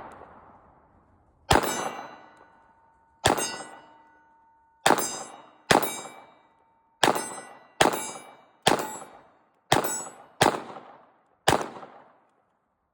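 A Palmetto State Armory Sabre 9mm pistol firing steel-case ammunition, ten shots in about ten seconds at an uneven pace, each shot trailing off, some with a metallic ring. The pistol cycles every round.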